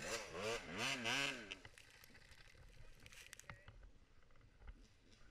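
Dirt bike engine revving up and down in quick repeated blips for about a second and a half, then only faint scuffs and ticks.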